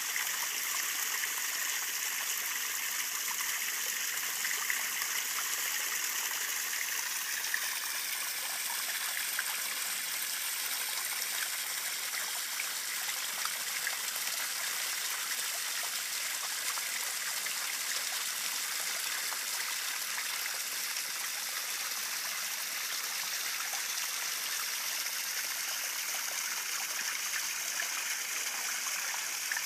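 Small garden-pond waterfall splashing and trickling steadily over rocks into the pond.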